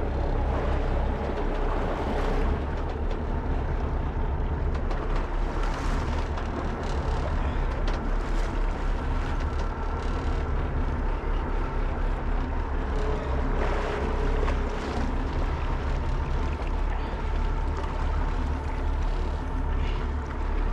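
Steady low rumble of a sportfishing boat's engine, mixed with wind buffeting the microphone.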